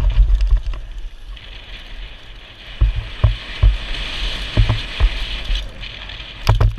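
Mountain bike riding fast down a dirt trail, heard from the rider's helmet: a steady hiss of tyres on hardpack and rushing air, broken by a string of low thumps and knocks as the bike jolts over bumps.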